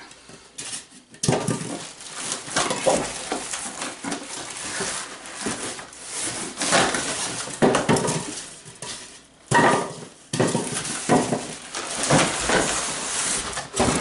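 Cardboard packing pieces scraping and crackling as they are pulled out of a box, then plastic wrap rustling as a wrapped drum shell is lifted, with clattery knocks throughout and a short pause about two-thirds of the way through.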